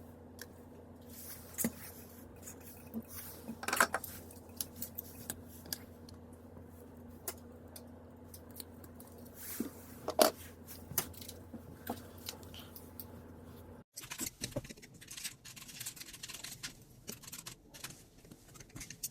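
Scattered small clicks, taps and knocks of parts and tools being handled, over a steady electrical hum. The hum cuts off abruptly about two-thirds of the way in, and denser clicking and rustling follows.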